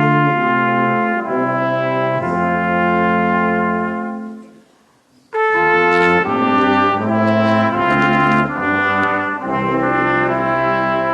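Brass ensemble, trumpets and trombones, playing sustained chords in two phrases; the first fades out about four seconds in and, after a short pause, the second enters at full volume and fades away near the end.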